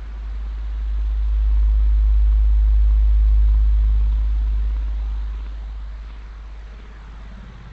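Synthesized sci-fi 'alien radio signal' sound effect: a deep low rumbling drone swells up, holds for a couple of seconds and fades away, over a faint hiss with faint sweeping tones.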